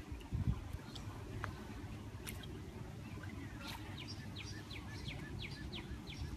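A bird chirping a quick run of short, falling notes, about four a second, over a low steady rumble.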